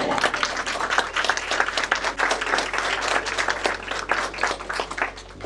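Audience applauding: many people clapping at once, loudest at the start and fading toward the end.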